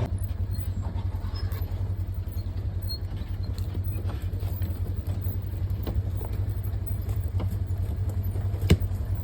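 A vehicle's engine running slow and steady with a fast low pulse while it drives over rough, rutted pasture, its body rattling and clicking lightly. A single sharp click or knock comes near the end.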